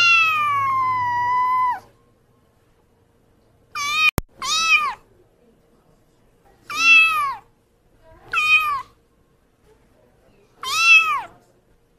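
Kitten meowing: one long, slowly falling meow, then five short high meows that rise and fall, spaced a second or two apart. A single sharp click sounds about four seconds in.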